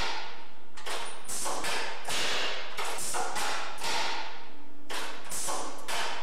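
A rapid, slightly irregular series of sharp taps or knocks, about two to three a second, each trailing off into hiss.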